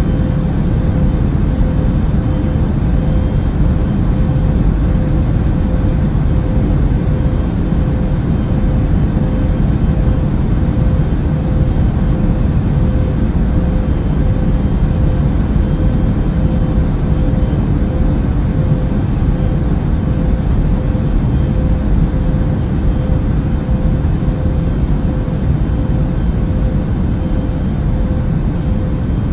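Airbus A380 airliner in flight: a steady, deep rumbling drone with a constant hum tone running through it, unchanging throughout.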